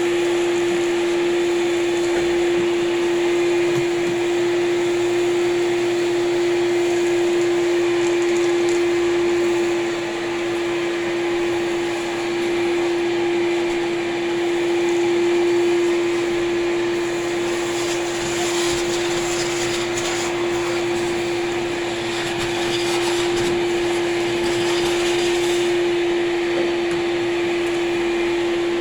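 Vacuum cleaner running steadily: a constant motor hum with one strong steady tone over an even rush of air. A brighter hiss comes and goes through the middle of the stretch.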